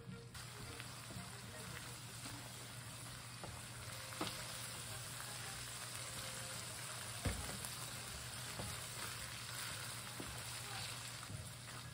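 Ground meat sizzling steadily in a frying pan as it is stirred, with a few light clicks of the spoon against the pan and one louder knock about seven seconds in.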